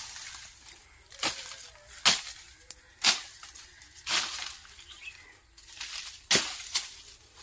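Curved billhook slashing through weeds and brush: about six sharp cutting strokes, irregularly spaced roughly a second apart, with two close together near the end.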